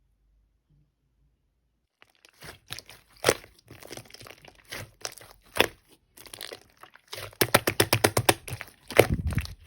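Clear slime being squished and pressed by hand, crackling and popping. Silent for about the first two seconds, then scattered crackles, turning into a fast run of pops near the end.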